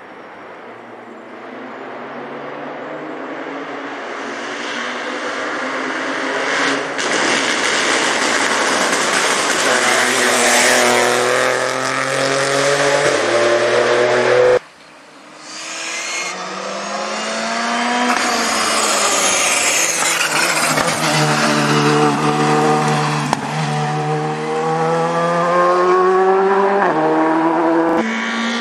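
Rally car engines at full throttle coming up a stage, growing louder as they approach, the revs climbing and falling back with each gear change. About halfway through the sound breaks off abruptly and a second car is heard approaching, again revving up through the gears.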